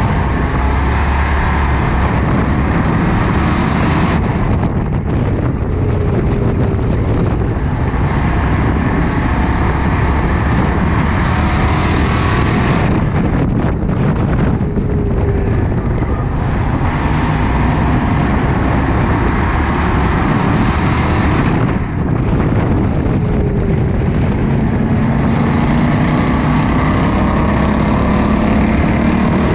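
In-car sound of a Ford Crown Victoria race car's V8 running hard around an oval. The engine note swells and fades repeatedly, full throttle on the straights and easing off into the turns, over steady wind and road noise.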